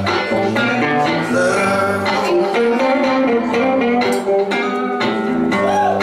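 Two electric guitars playing live through amplifiers, an instrumental passage of picked notes and chords.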